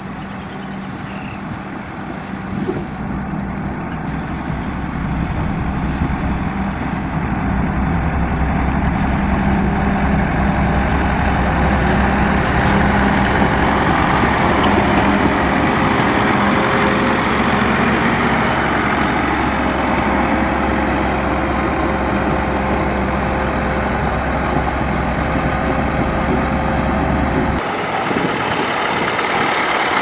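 Motor grader's heavy diesel engine running steadily while it blades the dirt road, a low rumble with a steady hum above it. The low rumble drops away abruptly near the end.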